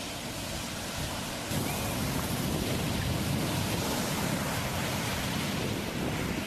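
Ocean surf washing in, a steady rush of waves that grows louder about a second and a half in.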